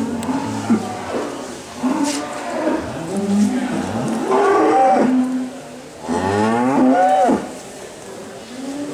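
Holstein-Friesian dairy cows mooing, several calls one after another, with two long, loud moos in the second half that rise and then fall in pitch.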